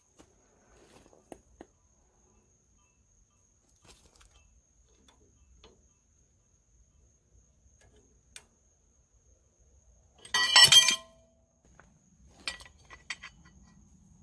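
Steel gib key puller clattering against the flywheel hub of an International Type M 6 hp engine: faint taps, then one loud ringing metal clatter about ten seconds in, followed by two or three lighter clinks. A steady high insect trill runs underneath.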